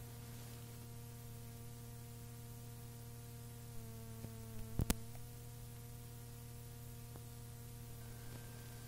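Steady electrical hum and hiss from a blank stretch of cassette tape between sides. A few faint clicks come about four to five seconds in, the loudest a sharp double click.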